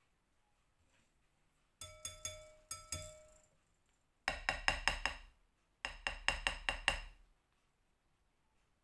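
A wire whisk and a metal potato masher knocked against the rims of mixing bowls to shake off batter and banana: a few ringing clinks about two seconds in, then two quick runs of about six taps each.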